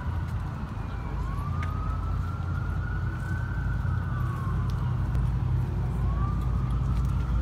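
Emergency vehicle siren on a slow wail, its pitch slowly rising and falling about once every five seconds, over a steady low rumble.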